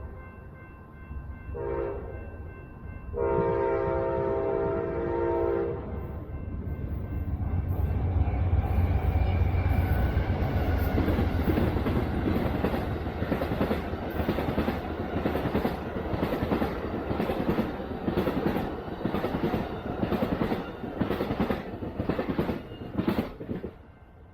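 Amtrak's Silver Meteor passenger train sounding its horn, a short blast and then a long one, the close of a grade-crossing signal, then passing with a low diesel locomotive rumble and a long run of steady wheel clicks over the rail joints that fade out near the end.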